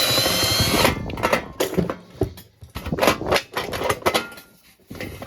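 Metal parts of a waffle iron being pried and handled. A harsh scrape with a squeal lasts about a second at the start, then comes a run of irregular clanks and clicks.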